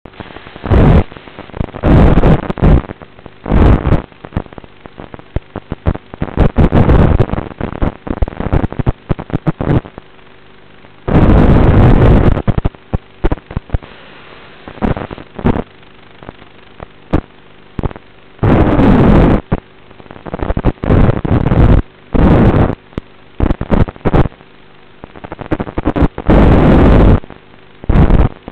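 Harsh static from an analog FPV video receiver's audio channel, cutting in as loud, irregular bursts of noise lasting up to a second or so, with a softer hiss between them.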